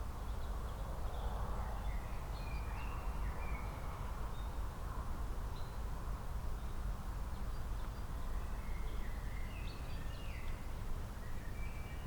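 Songbirds chirping: scattered short calls and brief song phrases from more than one bird, over a steady low background rumble.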